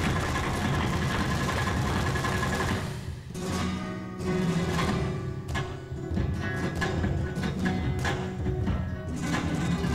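Live flamenco music on flamenco guitars, dense and sustained at first, dropping away briefly about three seconds in, then resuming with sharp percussive strikes over the guitar.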